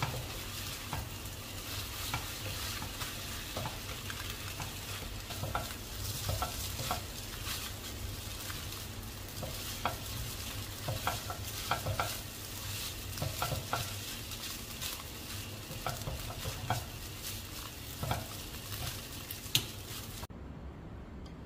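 Fried instant noodles sizzling in a wok while a spatula stirs and tosses them, with frequent short scrapes and taps against the pan. The sizzle cuts off abruptly near the end.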